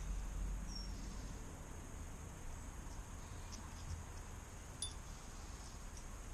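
Quiet outdoor ambience: a steady low rumble and a faint, steady high-pitched hum, with a few light clicks as small metal cassette parts (lockring and spacer) are handled.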